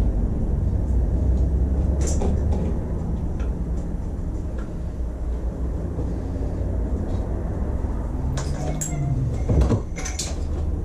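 Clicks and knocks of hands and tools working the clutch cable free from a dirt bike's clutch casing, over a steady low rumble. There is one knock about two seconds in and a cluster of clicks near the end.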